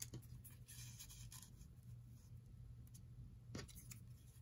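Faint handling of small paper die-cuts: a soft rustle and a few light taps as paper pieces are picked up and laid onto a card.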